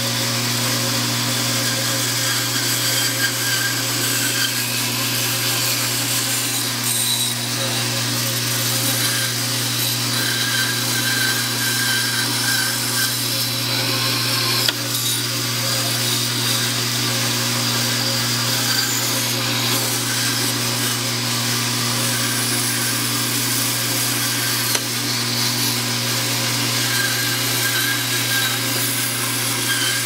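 Band saw running steadily, its blade cutting through a block of wood, over the constant hum of the motor.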